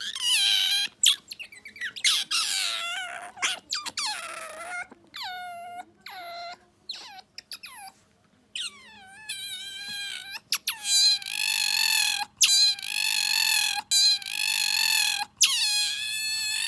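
Asian small-clawed otter squealing in a run of high-pitched calls, many sliding down in pitch as they start. Some calls carry a fast rolling trill, the 'gyurururu' call that this otter has only lately learned to make. Several longer held squeals of a second or more come in the second half.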